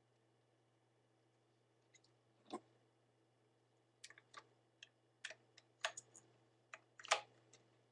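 Plastic clicks and knocks from a Lego-brick model Uzi being handled and turned over in the hands: a single click about two and a half seconds in, then a quick run of them in the second half, the loudest near the end.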